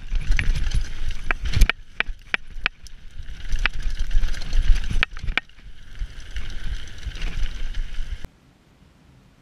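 Mountain bike riding fast down a gravel trail: steady tyre rumble over the loose surface and wind noise on the microphone, broken by frequent sharp clicks and knocks as the bike hits stones and roots. The sound cuts off suddenly about eight seconds in, leaving only a faint hiss.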